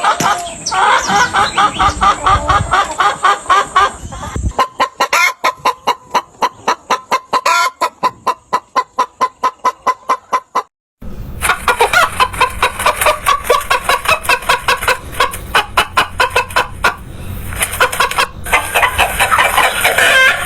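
Chickens clucking. In the middle comes a run of evenly spaced clucks, about four a second; the sound cuts out briefly about eleven seconds in, and dense clucking starts again.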